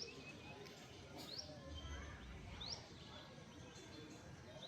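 A bird gives short, sharp rising call notes, four of them about a second and a half apart, faint over a steady background hiss.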